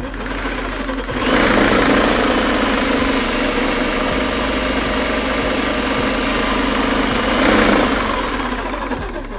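Electric drill driving a reciprocating-saw adapter on a homemade scroll saw, running without cutting. It spins up about a second in, runs steadily with a high whine, swells briefly near the end, then winds down.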